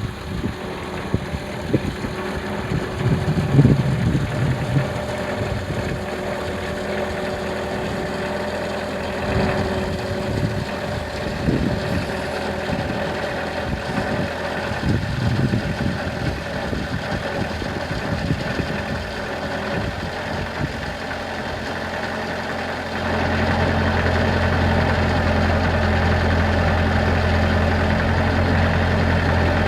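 An engine running steadily. About two-thirds of the way through, a deeper hum comes in and the sound grows louder.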